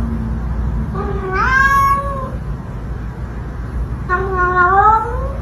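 A cat meowing: two long meows, each rising in pitch, one about a second in and one near the end, over a steady low rumble.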